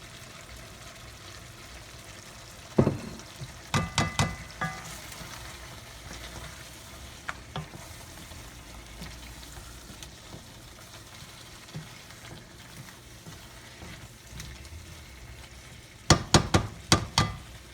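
Sliced onions and chicken sizzling in hot oil in a pot while being stirred, with a spoon knocking against the pot a few times about three to four seconds in and in a quick run near the end.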